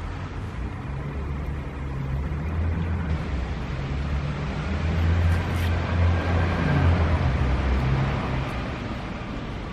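Low rumble of a motor vehicle's engine in street traffic, growing louder toward the middle and fading near the end, as if passing close by.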